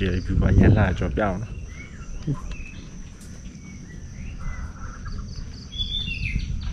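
Outdoor ambience of short bird chirps over a steady high insect drone, after a voice speaks briefly at the start.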